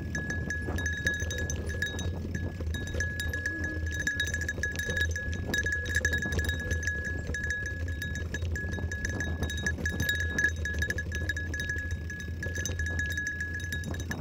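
A small bell on a mountain bike jingling continuously as the bike rolls over a dirt trail, its ringing pulsing with the bumps, over the rumble and rattle of tyres on dirt and the bike's frame.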